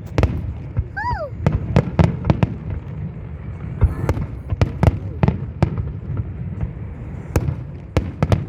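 Fireworks display: a rapid, irregular string of sharp bangs from exploding aerial shells over a continuous low rumble.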